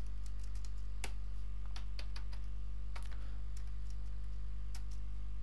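Computer keyboard being typed on: irregular key clicks, some in quick runs, over a steady low hum.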